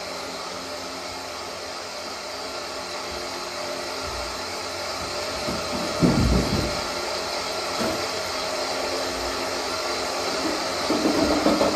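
Steady whirring hum of an electric fan over room noise, with one heavy thud about six seconds in as a player lands from a jump on the floor, and a few softer knocks and footfalls.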